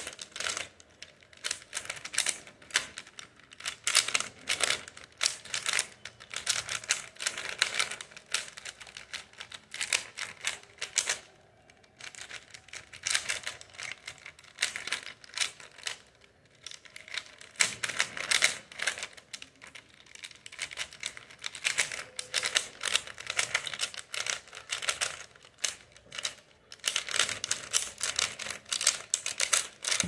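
Stickerless plastic 3×3 speed cube being turned fast by hand in a timed solve: rapid runs of clicking layer turns, broken by a few short pauses.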